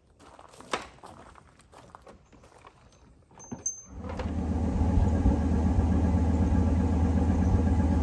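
A few light clicks and a jingle of keys, then about four seconds in the Ford Excursion's 6.8-litre V10 comes in loud and runs steadily.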